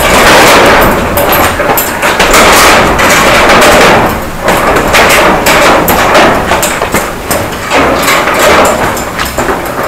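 Boxing gloves punching a hanging heavy bag: loud, repeated thuds of blows landing over and over.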